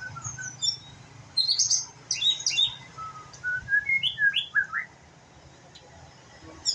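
White-rumped shama (murai batu) singing a string of quick whistled and chirped notes in short phrases, a young bird practising its song. The song pauses about five seconds in and starts again near the end.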